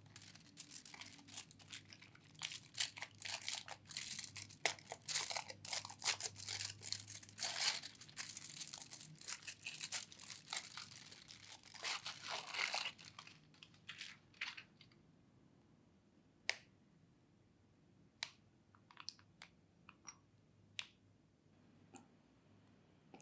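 Aluminium foil wrapper crinkling and tearing as it is peeled off a milk chocolate bar, for about thirteen seconds. After that, a scattering of separate sharp snaps and clicks as the chocolate is broken into pieces over small glass bowls.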